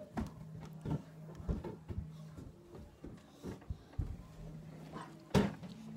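Irregular knocks and clatter, about eight in all, the loudest about five seconds in, over a low steady hum that comes and goes.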